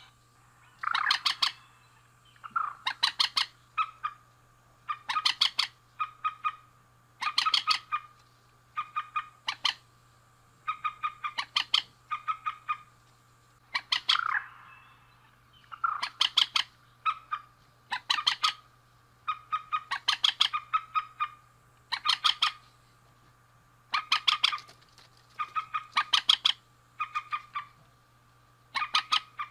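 Mandar (rail) calling: bouts of rapid, stuttering notes, repeated about once a second, with a faint steady hum beneath.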